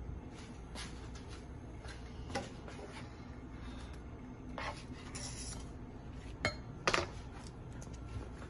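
A few light clinks and scrapes of a nonstick frying pan, a utensil and a ceramic plate as a crepe is lifted out of the pan and laid on the plate, with the loudest clink about two-thirds of the way through, over a low steady hum.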